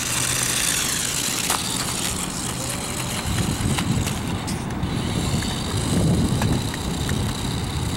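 Small electric motor of a remote-control stunt car whining as the car drives over concrete, over a steady low rumble, with a few short clicks.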